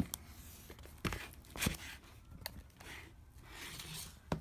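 Hands handling a shrink-wrapped cardboard box: a few sharp taps and clicks, with soft rustling of the plastic wrap in between.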